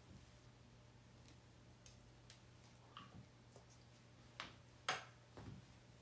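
Near-silent room with a low steady hum and a few light clicks and taps of watercolor painting tools being handled, the two loudest about four and a half and five seconds in.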